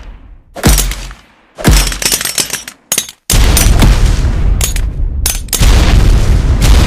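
Grenade explosion sound effects. Sudden loud blasts come about half a second in and again near two seconds, then after a brief gap a long, loud stretch of explosion noise, with another blast starting about five and a half seconds in.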